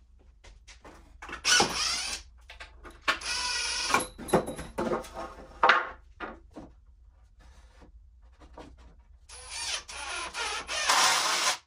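Cordless drill driving screws into 2x4 framing lumber in several short runs, its motor whining under load, with a longer stretch of driving near the end. The long screws are pulling bowed boards back together.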